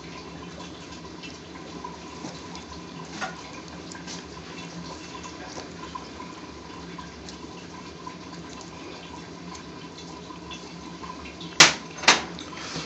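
Grilled garlic cloves crushed by a gloved hand: faint small ticks over a steady room hum, then two sharp clicks near the end.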